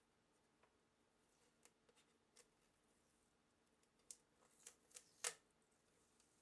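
Scattered small clicks and taps of tools and parts being handled during an electronics teardown. They cluster in the last couple of seconds, with the sharpest click a little after five seconds in, over a faint steady hum.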